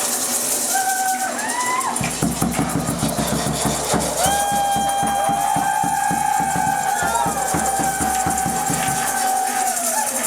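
Fast, steady ritual percussion with long wailing, howling tones held over it. The wailing starts with short rising cries, and the percussion begins about two seconds in and stops shortly before the end.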